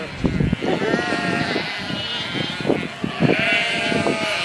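A large flock of sheep bleating, many calls overlapping, with a longer call held at one pitch about three seconds in.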